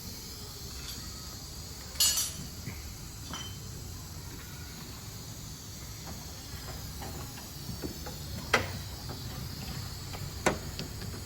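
Nissan Serena C26 engine bay running with its air-conditioning compressor engaged: a steady low hum under a high hiss, with three sharp clicks about two, eight and a half and ten and a half seconds in.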